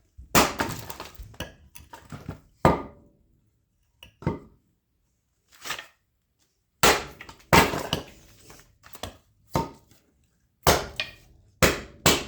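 Axe splitting dry oak firewood: a dozen or so sharp chops and knocks at irregular intervals, with a quiet stretch of a few seconds in the middle.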